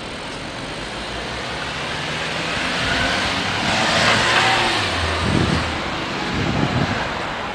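A car passing close by: its engine and tyre noise swells to a peak about four seconds in, then fades, with two brief low rumbles after.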